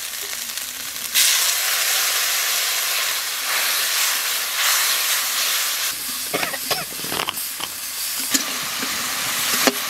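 Spice masala sizzling in hot oil in a metal kadai. About a second in, a loud hiss of steam as a little water goes into the hot pan, then a steel spatula scraping and stirring against the pan's sides.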